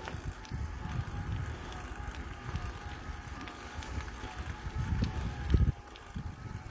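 Wind buffeting the microphone of a bicycle-mounted camera, an uneven low rumble with a louder gust about five and a half seconds in, over the faint riding noise of the bicycle climbing on asphalt.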